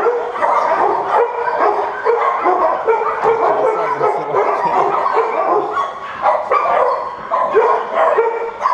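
Many dogs barking together, loud, their barks overlapping in a continuous din.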